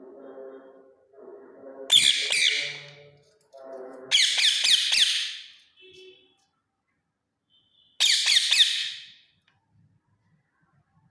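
Indian ringneck parrot giving three loud, harsh screeches, each a rapid run of notes lasting about a second: about two seconds in, about four seconds in, and about eight seconds in. Softer, lower-pitched chatter comes before the first two.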